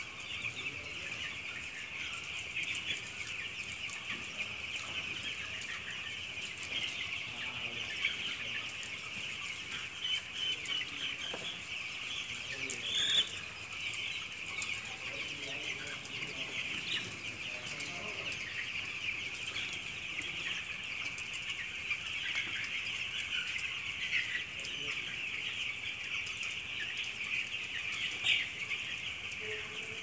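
A large flock of young broiler chicks peeping continuously, a steady high-pitched chorus, with a few louder individual peeps about halfway through and near the end.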